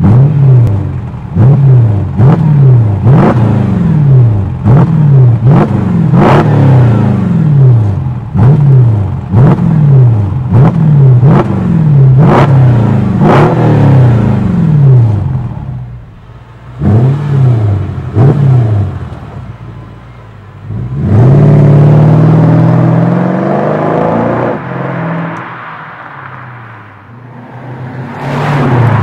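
Mercedes W207 E500's V8 through an MEC Design stainless steel 'Earthquake' loud exhaust, revved hard in quick blips at standstill, about one a second, with sharp crackles as each rev drops. After a short pause come two more blips and then a longer rev that climbs for about two seconds before falling back to idle.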